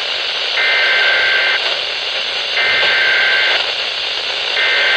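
Three bursts of SAME digital alert data on a Weatheradio Canada broadcast, each about a second long and about a second apart, heard as a buzzing two-tone data signal over radio static. These are the coded header bursts that open an emergency weather alert.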